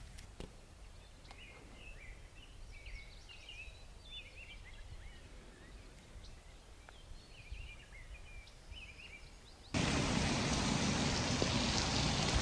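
Small birds chirping faintly over a quiet low rumble; near the end the sound switches abruptly to a loud, steady hiss of rain falling.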